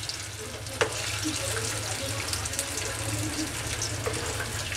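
Masala-coated broccoli florets sizzling steadily as they deep-fry in hot oil in a frying pan, with small crackles. A perforated metal spoon clinks against the pan about a second in and again near the end as the pieces are turned.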